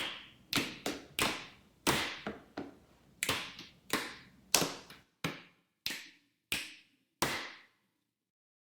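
Body percussion performed as a two-part canon: stomps, hand claps, thigh and belly slaps and finger snaps, each a sharp hit with a short ring of room echo. The hits come thick and overlapping at first, grow sparser and evenly spaced after about five seconds, and stop about seven and a half seconds in.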